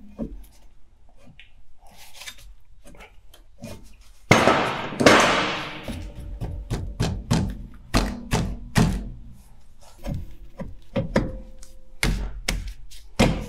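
A new steel brake drum being worked by hand onto the hub over the rear drum-brake shoes, knocking and clunking repeatedly against the shoes and hub. About four seconds in, an aerosol can of brake cleaner hisses for about a second and a half.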